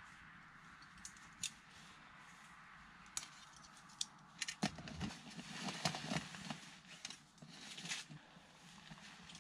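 Light metal clicks, then a cluster of clinking and clattering knocks from about halfway through, as the aluminium parts of a Trangia 27 stove, its windshield and pot, are handled and fitted together.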